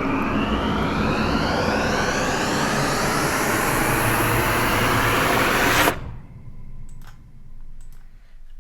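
Playback of a sound-design mix: a loud rushing noise with several tones gliding steadily upward, cut off abruptly about six seconds in. A few faint clicks follow.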